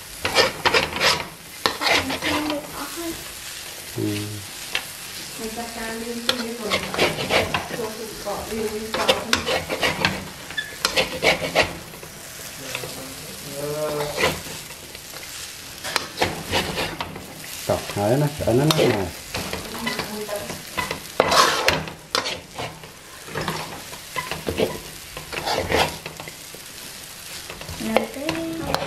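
A metal spatula repeatedly scraping and clinking against a wok while noodles and kale are stir-fried, with the food sizzling in the hot pan. The scrapes come in quick, irregular strokes.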